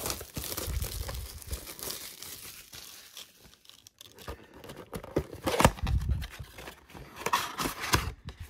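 Plastic shrink wrap being picked at, torn and peeled off a cardboard trading-card box, crinkling and crackling irregularly, quieter for a moment midway and busier again after.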